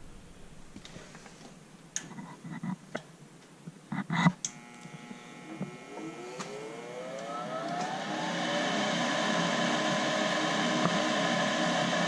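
Goodman gas furnace's draft inducer motor starting up: a few clicks and knocks, then a whine rising in pitch as the motor spins up over a few seconds, settling into a steady whir. This is the first stage of the furnace's ignition sequence.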